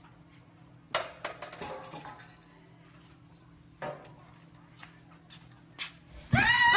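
Several sharp clinks and knocks, then, near the end, a sudden loud shriek whose pitch rises and falls.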